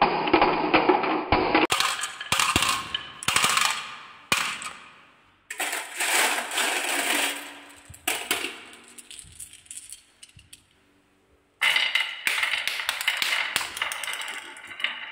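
Glass marbles rolling and clattering down wooden marble-run tracks and knocking into a toy dump truck's bed, with many sharp clicks. The clatter comes in spells, dies away to near silence about ten seconds in, then starts again with more rolling and clicking.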